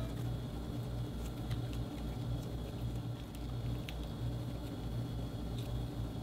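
Clear slime streaked with green metallic marker being squeezed, kneaded and stretched by hand, giving scattered sticky clicks and small pops at irregular moments. A steady low hum runs underneath.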